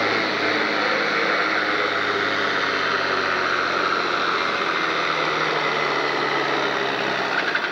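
John Deere farm tractor's diesel engine running hard under full load as it drags a weight-transfer pulling sled, a steady, unbroken engine sound; the heavy black exhaust smoke marks it as fuelled to the limit.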